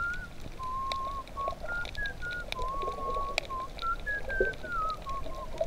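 Background music carried by a whistled melody: single pure notes, held and slightly wavering, stepping up and down, over a soft accompaniment with scattered light clicks.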